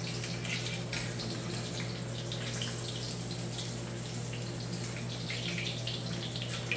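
Floured fish fillets pan-frying in a cast-iron skillet: a steady sizzle with small crackles and pops, over a steady low hum.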